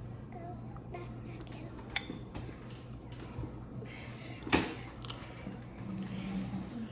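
Light clinks of cutlery and dishes, with one sharper clatter about four and a half seconds in, over a steady low hum.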